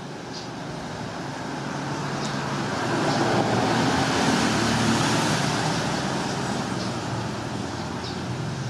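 A road vehicle passing by, its engine and road noise swelling to a peak about four seconds in and then slowly fading.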